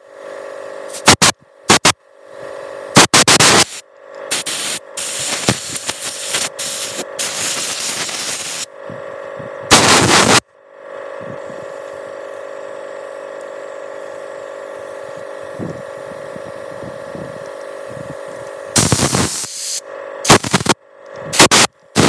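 Short, loud hissing blasts of compressed air from a blow gun as the passages of a chainsaw carburetor are blown clean, with one longer blast of several seconds. Between the blasts a steady hum runs on by itself for several seconds.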